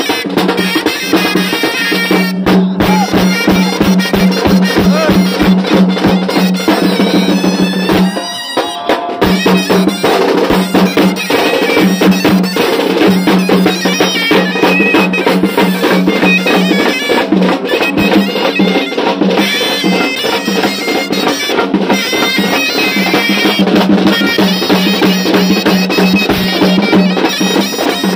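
Indian street brass band playing: trumpets blowing a melody over bass drum and side drum beating a steady rhythm. A sustained low note runs under the horns and drops out briefly about eight seconds in.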